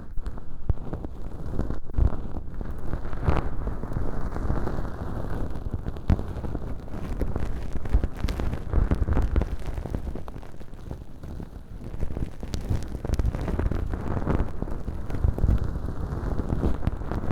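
Feather earpick (bonten) brushing close to the microphone inside a transparent ear-canal tube packed with velcro and dry fake earwax, a dense crackly rustling and scratching with a few sharper clicks.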